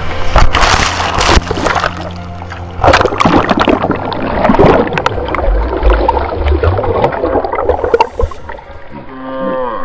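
Waves breaking and washing over a person lying in shallow surf, water rushing and splashing in repeated loud surges, with background music underneath.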